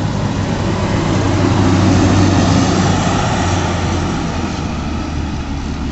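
A heavy diesel engine runs with a low, steady drone. It swells to its loudest about two seconds in, then eases off.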